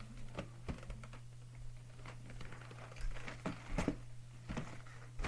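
Irregular clicks and taps of scissors and hands working at a slime kit's plastic packaging to open it, over a steady low hum.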